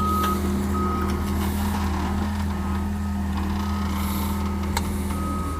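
A machine's engine running steadily while its reversing alarm beeps on and off.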